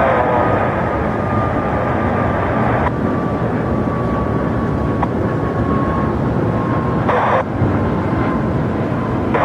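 Jet airliner engines running steadily on the airfield, with a faint whine that slowly falls in pitch. Over it, air traffic control radio hiss that cuts off about three seconds in, and a short radio blip about seven seconds in.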